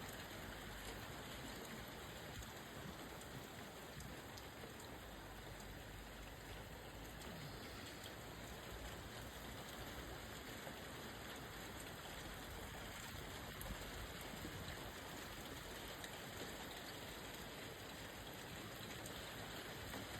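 Steady rain falling, an even hiss with faint scattered drops ticking on surfaces.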